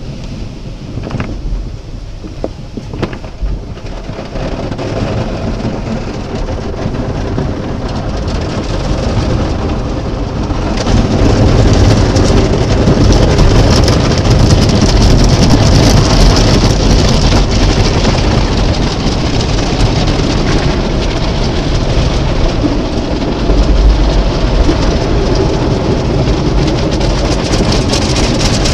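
Car wash water spraying onto a car, a steady rush that grows louder and jumps up about eleven seconds in.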